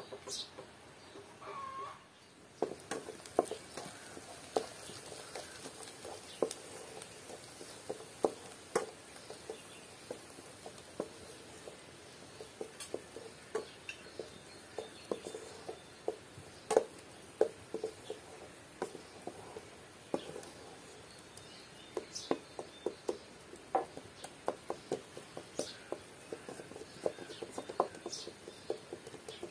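Knife chopping herbs on a wooden cutting board: light, irregular knocks, at times several in quick succession.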